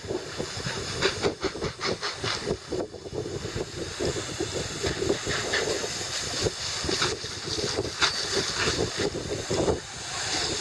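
Garden hose spraying water, a steady hiss, with wind gusting across the microphone.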